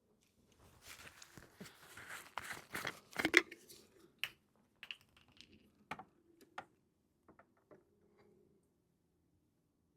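Close rustling and crinkling with a string of sharp clicks and knocks, loudest about three seconds in and thinning out to a few scattered clicks before stopping near eight seconds.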